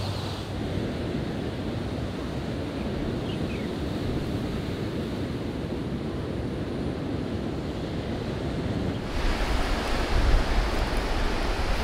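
Steady wash of sea surf with wind. About nine seconds in it becomes louder and closer: waves breaking on a pebble shore, with wind rumbling on the microphone.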